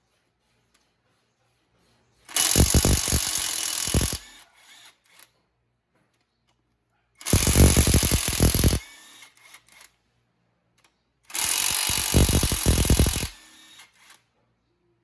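Total 20V cordless 1/2-inch impact wrench running in three bursts of about two seconds each, a few seconds apart.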